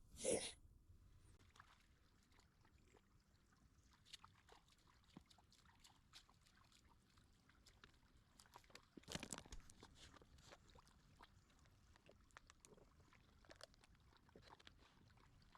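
Near silence, with faint scattered ticks and crunches and two brief louder rustling noises, one just after the start and one about nine seconds in.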